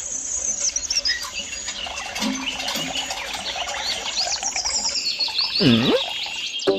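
Many small birds chirping, with one short swooping tone near the end that dips and rises again.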